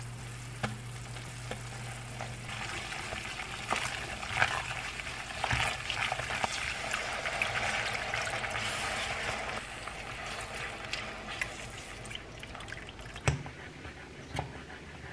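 Butter-and-flour roux sizzling in a pan as it is stirred, with milk poured in and stirred through to make béchamel sauce. The utensil scrapes and clicks against the pan throughout, with one louder knock near the end.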